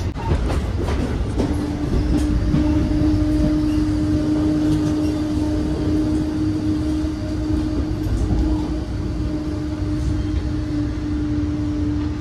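Amtrak passenger train running, heard from inside the coach as it slows into a station: a steady low rumble of wheels on rail, with a steady whine that sets in about a second and a half in.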